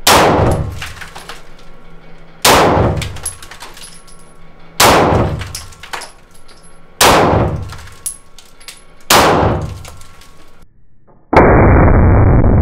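Five semi-automatic pistol shots, about two seconds apart, each echoing off the concrete walls of an indoor range. Near the end a sudden loud, muffled rush of noise begins.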